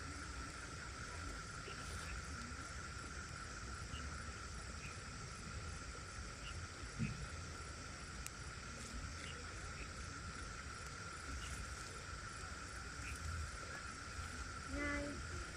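Insects chirring steadily as one constant high tone over a low outdoor rumble, with a few faint clicks.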